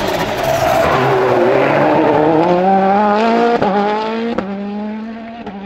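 Citroën C3 WRC rally car's turbocharged 1.6-litre four-cylinder pulling out of a bend at full throttle, its engine note climbing steadily with two quick upshifts, each with a sharp crack, about three and a half and four and a half seconds in. The sound fades as the car drives away.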